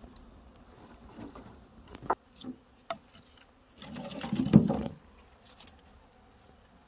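Dry firewood branches knocking and clattering as they are handled for a wood-fired oven. There are a couple of sharp knocks about two seconds in, then about a second of scraping and rattling as a bundle is pulled from the woodpile.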